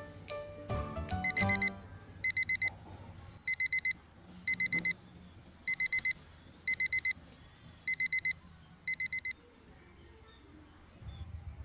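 Electronic alarm beeping in quick bursts of four high beeps, about one burst a second, seven bursts in a row before it stops.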